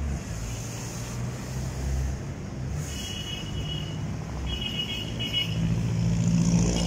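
Road traffic: a motor vehicle's engine gives a steady low hum, growing a little louder near the end. Short high chirps sound twice, about three and five seconds in.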